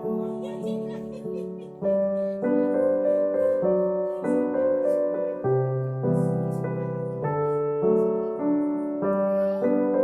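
Background piano music: a gentle melody of held notes, changing about every half second over a slower-moving bass.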